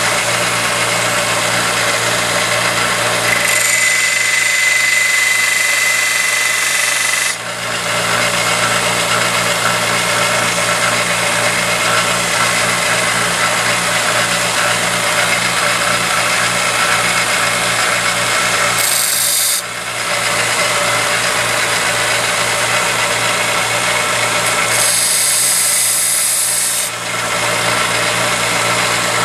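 Grizzly 1x30 belt grinder running steadily, with a knife blade pressed to the moving belt in sharpening passes: a brighter hissing grind from about four to seven seconds in, briefly near twenty seconds, and again a couple of seconds before the end.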